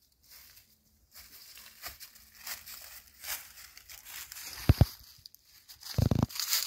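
Bare feet crunching and rustling through dry fallen leaves, in a string of short crackles, with two louder dull thumps in the second half.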